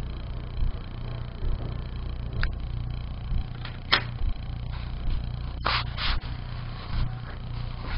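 Steady low hum with a few sharp clicks and knocks from an HDMI cable and connector being handled at a laptop's ports, the loudest click about four seconds in and a quick pair near six seconds.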